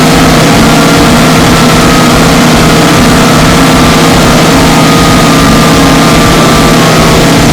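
Harsh electronic noise at full loudness: a dense, distorted wall of static with several steady droning tones held underneath, unbroken throughout.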